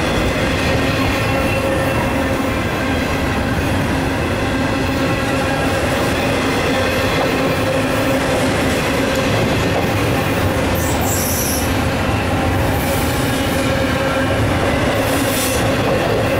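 Double-stack intermodal well cars rolling past: steady running noise of steel wheels on rail with a constant hum, and brief high-pitched wheel squeals about eleven and fifteen seconds in.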